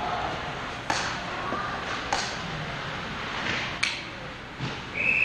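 Ice hockey game rink noise: a steady arena hum broken by three sharp clacks about a second or more apart. A steady high whistle tone starts right at the end.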